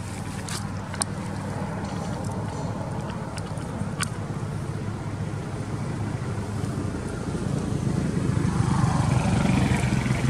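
A motor vehicle's engine running steadily, growing louder about eight seconds in as it comes closer, with a few faint sharp ticks over it.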